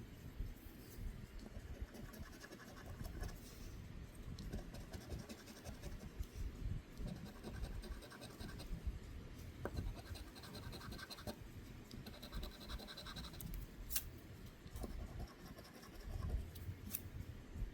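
Faint scraping of a scratch-off lottery ticket's coating being scratched away in repeated short strokes, with brief pauses between runs.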